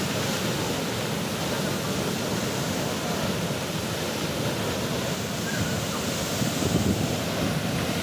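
Water gushing steadily from a burst pipeline, a tall fountain of muddy water crashing back down onto the road in a constant rush.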